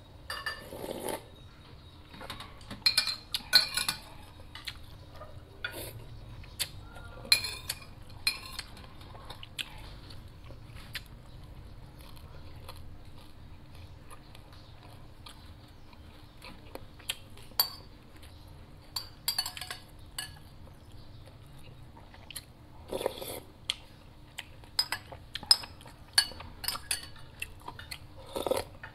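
A metal spoon clinking and scraping against ceramic soup bowls and a plate in sharp, scattered clinks, with a few softer bursts of soup being drunk straight from the bowl.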